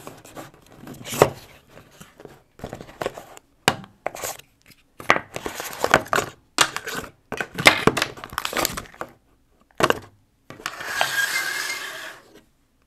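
A cardboard earbuds retail box being opened and unpacked by hand: rustling and scraping of cardboard and paper inserts with sharp clicks and knocks as parts are lifted out and set down, and a longer continuous scrape near the end.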